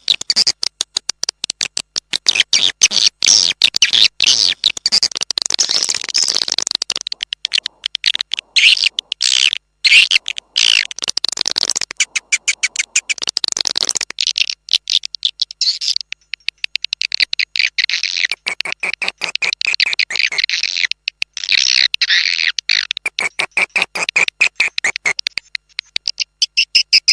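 Swiftlets twittering in a dense, continuous chorus of rapid high-pitched chirps and clicks, broken by a few short pauses. This is a swiftlet call recording of the kind played to draw swiftlets into nest houses.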